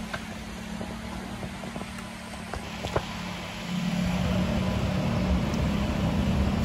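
Ferrari F430's V8 engine running at low revs as the car drives off slowly in traffic, getting louder about two-thirds of the way through.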